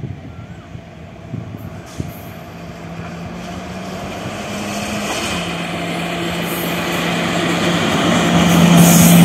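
Indian Railways electric locomotive hauling a loaded freight train approaching, its steady low hum and the rumble of the train growing steadily louder as it nears. The hum drops slightly in pitch about five seconds in.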